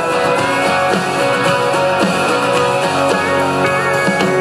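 Music with guitars: an instrumental stretch of a song, with no singing.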